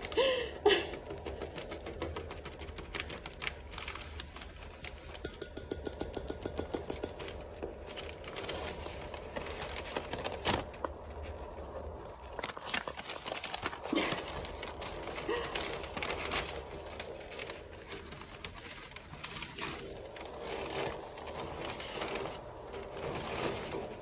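Cockatiels crinkling and rustling paper sheets, running their beaks over the paper in scratchy clicks, with a fast rattling run of taps about five to seven seconds in. Now and then a short, soft bird call.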